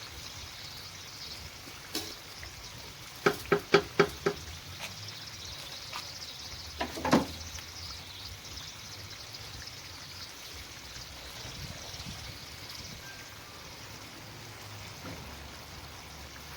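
Five quick sharp knocks, about four a second, then a single louder knock with a short ring a few seconds later, over a steady faint hiss.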